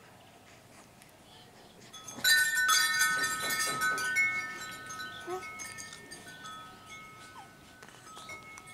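Metal chimes jangling together about two seconds in, then several clear high tones ringing on and slowly fading, with a few fainter chime notes later.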